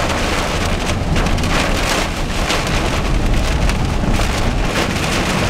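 Heavy rain pelting a moving car's windshield and roof, heard from inside the cabin as a dense, even patter over a steady low rumble.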